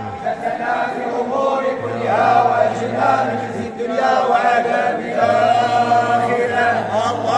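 A group of men chanting a devotional chant together in unison, unaccompanied, with long held notes.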